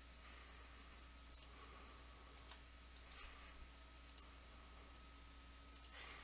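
Faint computer mouse clicks, several scattered ones over a low steady hum.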